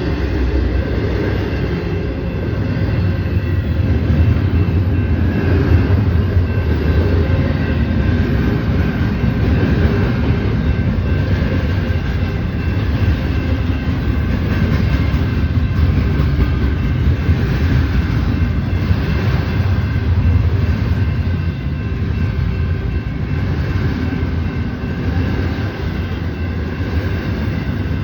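Union Pacific intermodal freight train rolling past: a loud, steady rumble of steel wheels on rail that holds the whole time, with faint steady higher tones over it.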